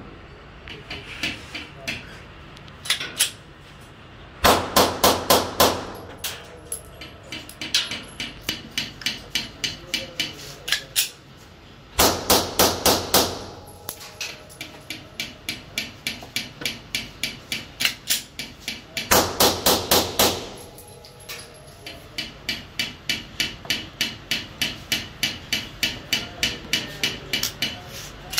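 Customised Glock 34 pistol fired in three rapid bursts of several shots each, with quieter sharp cracks at a steady pace between the bursts.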